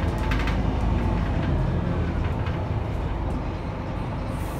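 Scania K310UB city bus heard from inside the cabin: a steady low rumble of its diesel engine and drivetrain, with a few brief rattles near the start.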